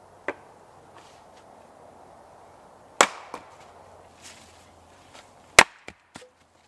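Small hatchet chopping wood on a chopping stump, splitting kindling: a light knock just after the start, a sharp chop about three seconds in with a smaller one right after, and the loudest chop near the end followed by two lighter knocks.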